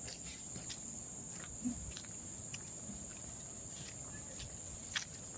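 Steady, high-pitched drone of forest insects, with scattered light clicks and footfalls and a low rumble underneath.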